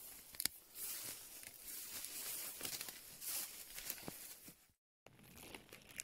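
Rustling and crackling of someone moving through forest grass and undergrowth, with a few sharp handling clicks. About three-quarters of the way through the sound drops out to dead silence for a moment, then the rustling resumes faintly.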